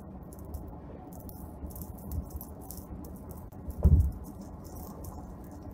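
Loose gravel from a dump truck pelting the car's windshield and body: a constant patter of small sharp clicks over road noise, heard inside the cabin. One heavier thump comes about four seconds in.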